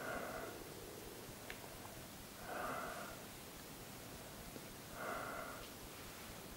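A person's slow breathing, heard as three soft breaths at an even pace, about two and a half seconds apart.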